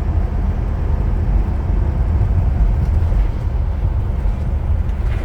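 Steady low road and engine rumble heard inside the cab of a motorhome driving along.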